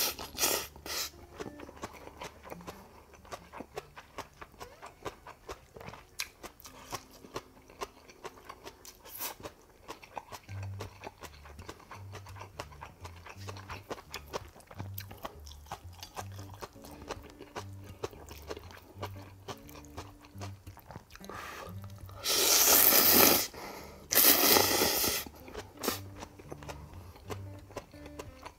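Close mouth sounds of eating tonkotsu ramen: chewing with many small clicks, then two long, loud noodle slurps about three-quarters of the way through. Soft background music with a low beat comes in about a third of the way in.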